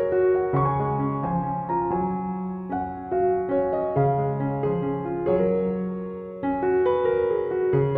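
Background piano music, gentle notes in an even rhythm with a steady bass line.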